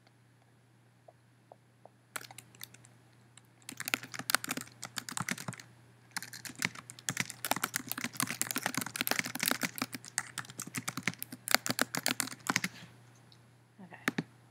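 Typing on a computer keyboard: runs of rapid keystrokes start about two seconds in and stop shortly before the end, over a faint low hum.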